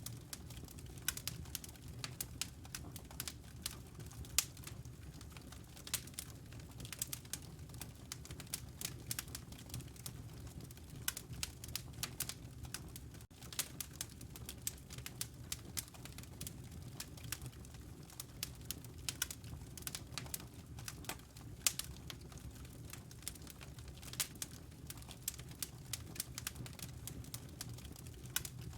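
Wood fire crackling in a stone fireplace: irregular sharp pops and snaps of varying loudness over a low, steady rumble of the burning logs.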